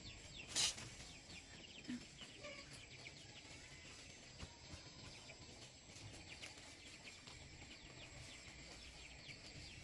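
Faint chicken calls: many short, high chirps throughout, with a sharp knock about half a second in.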